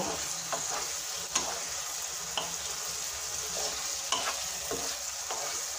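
Thick paneer masala gravy sizzling in a nonstick pan while a spatula stirs it, with a few light scrapes of the spatula against the pan.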